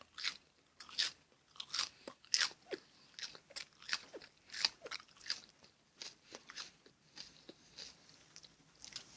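A person chewing a mouthful of raw onion, with crisp crunches at about two a second that are loudest in the first half and grow softer and sparser toward the end.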